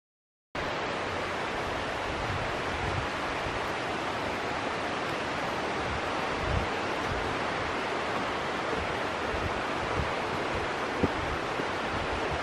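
Steady rushing of a forest stream or waterfall, coming in abruptly about half a second in, with a few soft low thumps under it.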